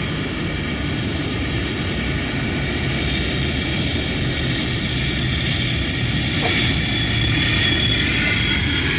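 A steady engine drone, aircraft-like, with several high whining tones over a low rumble. It slowly grows louder and brighter from about six seconds in.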